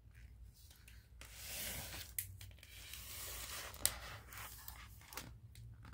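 A picture-book page being turned: paper rustling and sliding for a few seconds, with a few small clicks.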